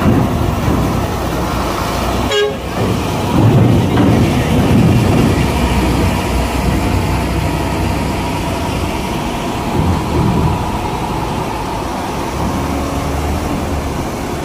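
Heavy truck engine pulling a lowbed trailer loaded with an excavator up a steel ferry loading ramp, a steady low rumble under load with a faint steady higher tone over it. A short sharp sound comes about two seconds in.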